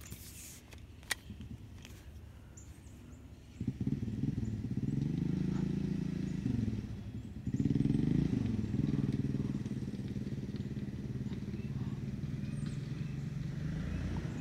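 An engine starts running close by about three and a half seconds in, its pitch rising and falling. It drops off briefly around seven seconds in, then picks up again and keeps running.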